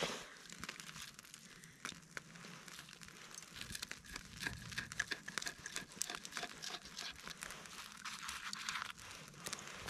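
A knife cutting and flaking pan-fried trout with crisp, crunchy skin on a wooden plank: a run of small crunching and crackling sounds with light clicks.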